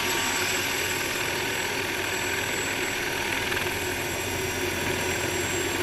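Mosquito ultralight single-seat helicopter running steadily, heard from its open cockpit: an even engine-and-rotor noise with a steady high whine over it.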